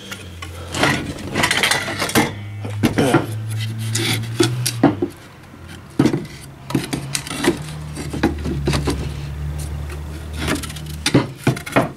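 Wooden log rounds and offcuts knocking and scraping against each other as they are picked up and shifted in a pile, many irregular sharp knocks throughout.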